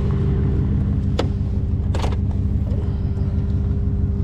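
Rollback tow truck's engine running steadily, with two sharp clicks, one about a second in and another about two seconds in.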